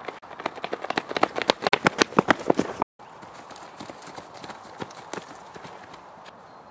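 Running footsteps slapping on brick paving, a quick patter of two runners that grows louder as they come close, cutting off sharply about three seconds in. Then quieter rustling and crunching of feet running through dry fallen leaves.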